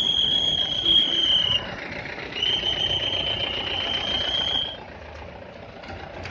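Vehicle engines running, with an army truck moving past, under two long, steady high-pitched tones of about two seconds each, separated by a short gap.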